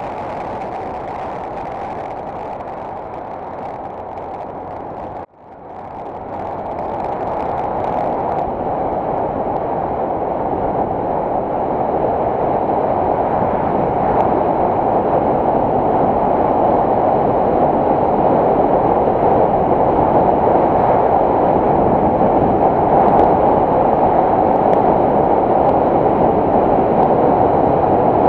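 Steady wind rush and road noise of a Yamaha M-Slaz motorcycle ridden at speed, heard from a camera mounted on the bike. About five seconds in, the sound cuts out for an instant, then comes back and grows louder.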